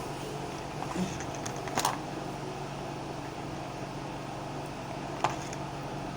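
A few light clicks and knocks of containers being handled while almond oil is measured in, about a second in, just before two seconds and again past five seconds, over a steady low hum.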